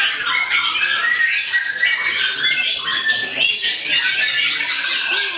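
Many caged songbirds singing at once, a dense, continuous mix of rapid chirps, trills and whistles.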